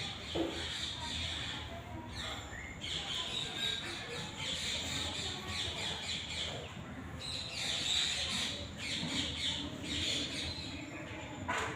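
Birds squawking and chattering in raspy bursts of a second or two that come and go.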